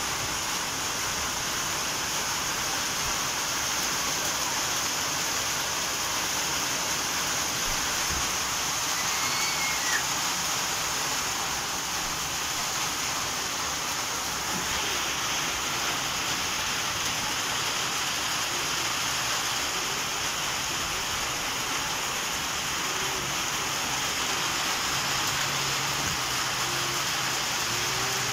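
Rain falling steadily: an even hiss with no letup.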